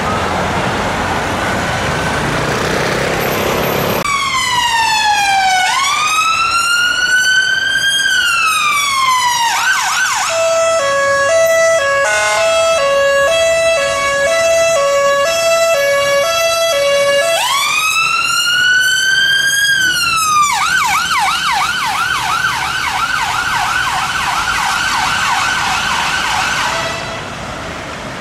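Siren of a London Ambulance Service Mercedes-Benz Sprinter ambulance, starting suddenly about four seconds in after street traffic noise. It cycles through its tones: a slow rising-and-falling wail, a two-note hi-lo, the wail again, then a fast yelp that stops about a second before the end.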